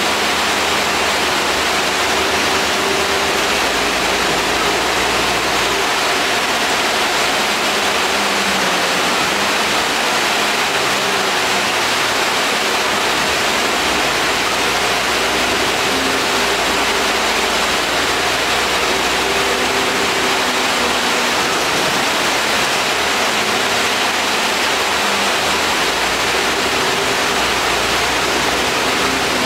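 Steady rushing of the air-conditioning and road noise inside the lower deck of an Alexander Dennis Enviro400 double-decker bus, with a faint engine hum wavering underneath. The air-conditioning is fairly noisy.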